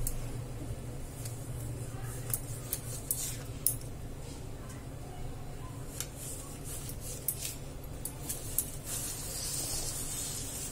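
Kitchen knife cutting a slab of set barfi on a wooden chopping board: scattered light clicks and taps of the blade on the board, with a short scraping sound near the end.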